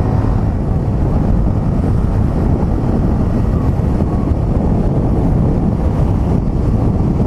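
Steady wind noise on the microphone over the low rumble of a motorcycle riding at speed.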